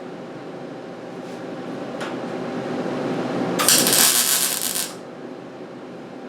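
Welding arc on thin sheet steel: one short burst of crackling hiss lasting about a second, starting about three and a half seconds in, as a patch panel is welded into the rusted cab roof above the windshield. A steady hum runs underneath.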